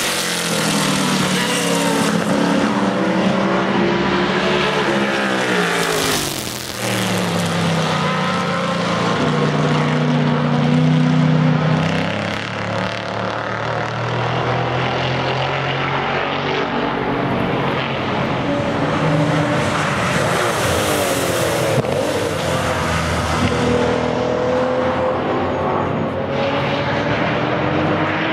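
Historic sports racing cars running at high revs, several engines overlapping. Pitch rises and falls as cars go past, with clear pass-bys about six seconds in and again around twenty-one seconds.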